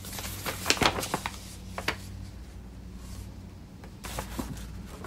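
A paper instruction leaflet being unfolded by hand: light crinkles and rustles, most of them in the first two seconds, a few more near the end.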